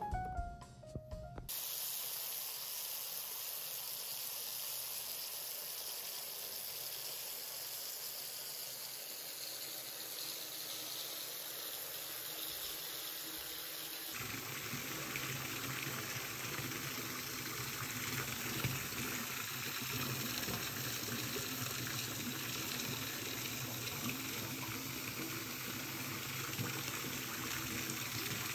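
Water running steadily from a tap, an even rushing hiss. About halfway through it turns fuller, with more low rumble.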